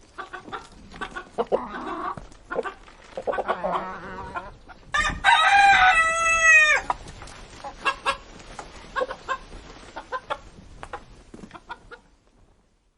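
Chickens feeding, with many sharp pecking clicks and soft clucking. About five seconds in a rooster crows once, loud and about two seconds long; the pecking goes on and stops near the end.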